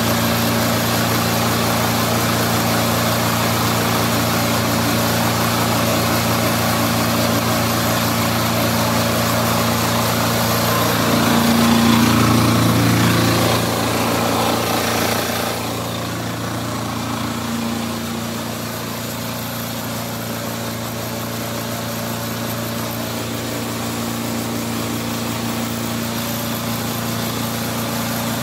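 Single-cylinder diesel engine of a 200-bar hot-water and steam pressure washer running steadily, driving its high-pressure pump. It is louder for a few seconds about halfway through, then settles to a slightly quieter steady drone.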